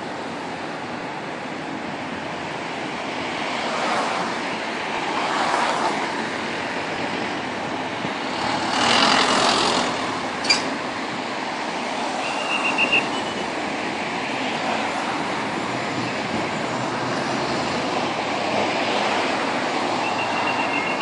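Road traffic: cars and trucks passing on a multi-lane road, with louder pass-bys about four, six and nine seconds in and a sharp click just after ten seconds. Short high beeps sound about twelve seconds in and again at the very end.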